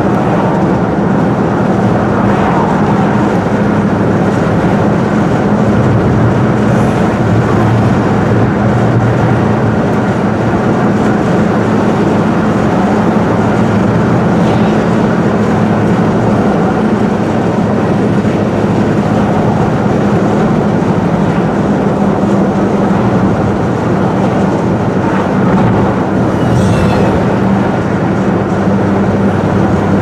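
Steady road and engine noise inside a moving car: an even drone with a constant low hum.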